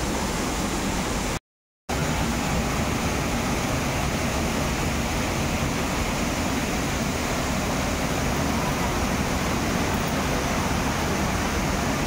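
Steady rush of a waterfall's falling water. It drops out completely for about half a second, about a second and a half in.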